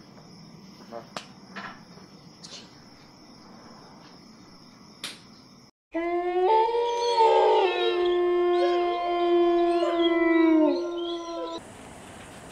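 Crickets chirping steadily. After a sudden cut about halfway in, several dogs howl together in long, overlapping, wavering howls, much louder than the crickets, which stop near the end.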